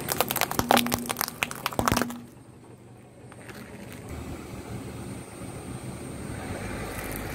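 Car tyre rolling over a pile of acorns, the shells cracking in a rapid string of sharp pops over the first two seconds. After that it goes quieter, with only a low steady car sound.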